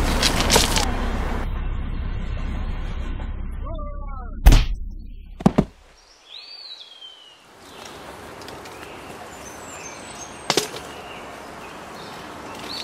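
Train rumble fading over the first second or so, then a sharp, very loud thud and, a second later, a quick double knock. After a short quiet gap, low outdoor ambience with one more thud and bird chirps near the end.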